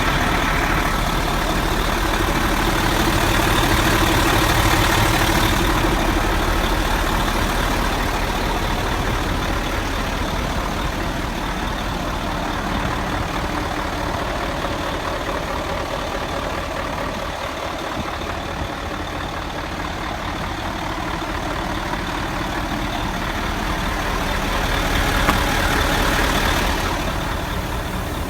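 Mercedes-Benz Actros truck's OM 502 V8 turbo-diesel engine running steadily, swelling a little louder a few seconds in and again near the end.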